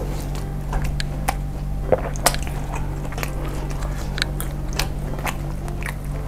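Close-miked chewing of a dense, meaty bakso meatball: wet mouth clicks and smacks at an uneven pace, over a steady low hum.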